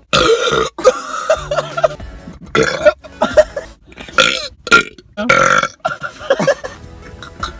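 Men burping loudly, a string of separate belches one after another, brought up by gulping fizzy drinks.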